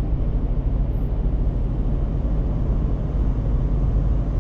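Overland vehicle driving along a dirt mountain trail: a steady low engine and tyre rumble.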